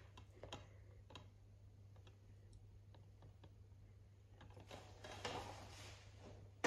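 Faint clicks and rustling of a plastic DVD case being handled and turned over, over a low steady hum.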